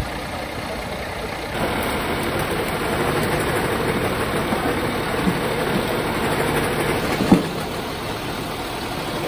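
Fire engine idling at the scene, a steady engine noise, with one short knock about seven seconds in.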